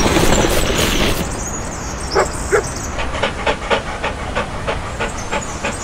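Dog sound effect: after a rush of noise in the first second, a dog gives two short barks about two seconds in, then pants rapidly at about four breaths a second.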